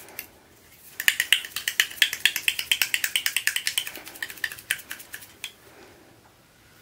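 Glass nail polish bottle rolled briskly between the palms to mix restorer thinner into old, separated polish, giving a quick run of light clicks and rattles several times a second. The clicking starts about a second in and fades out after about five seconds.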